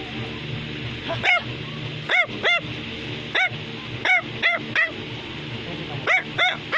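Bichon Frisé barking in short, high yaps, about ten in irregular groups of two or three, each rising and falling in pitch. A steady low hum runs underneath.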